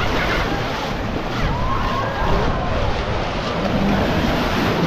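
Baltic Sea surf washing onto a sandy beach, mixed with wind rumbling on the microphone.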